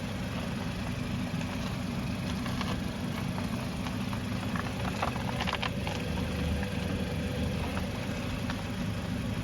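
2015 Mazda CX-5 heard from beside its front wheel: a steady engine-and-road hum with a few light clicks about halfway through. No suspension creak is heard; the new front stabilizer link has cured it.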